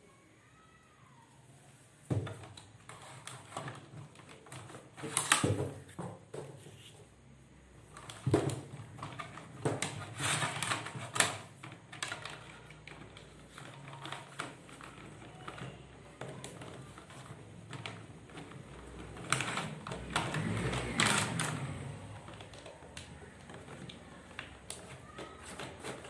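Irregular clicks, knocks and rustling of electrical wire being handled and fed through PVC conduit and plastic mounting boxes, starting about two seconds in.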